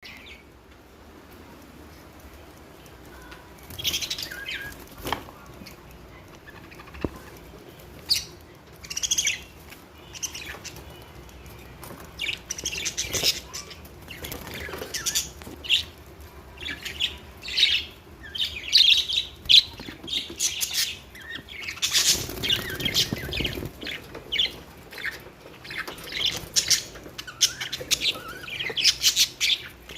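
Small birds chirping in short, quick calls, sparse at first and busier through the second half, with a brief flurry of wing flaps about two-thirds of the way in.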